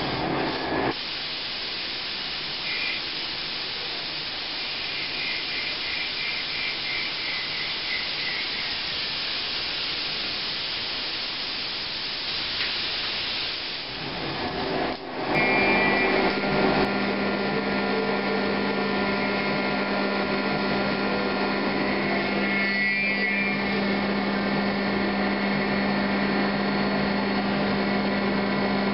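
Okuma Genos L300E-M CNC lathe cutting a spinning part. For the first half there is a steady hiss of coolant spray and cutting. About halfway through it changes to a louder, steadier machine sound with a low hum and a high whine.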